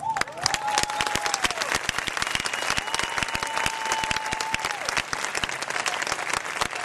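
Audience applauding: dense, steady clapping. Two long held calls rise over the clapping, one near the start and one about three seconds in.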